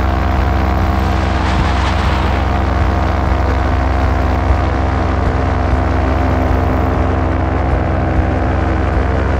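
Paramotor engine and propeller running at a steady throttle, a constant drone with wind noise over it.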